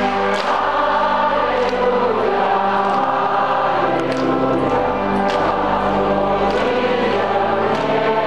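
A large congregation and a choir singing a hymn together, many voices holding long notes.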